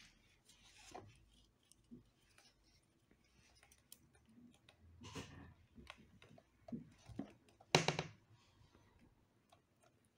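Quiet clicks, taps and handling noises of hands pressing an iMac's display cable connectors into their sockets, with one louder sharp sound about three-quarters of the way through.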